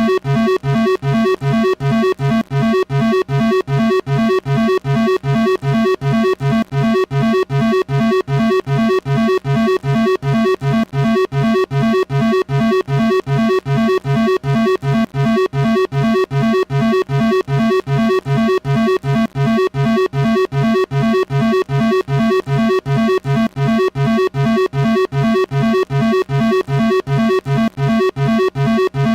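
Synthesized emergency alert alarm tone: a low, buzzy chord pulsing on and off about three times a second at an unchanging pitch.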